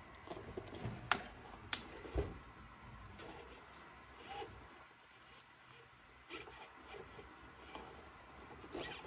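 Soft rubber rock-crawler tires on an RC crawler truck, faintly scuffing and rubbing on a work mat as the truck is pushed and twisted by hand. Two sharp clicks and a thump come between about one and two seconds in.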